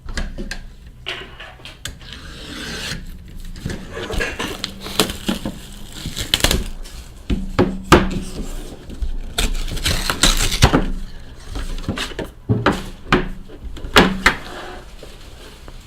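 A trading card box being opened and its contents handled: repeated sharp clicks and knocks mixed with rubbing, scraping and rustling of packaging.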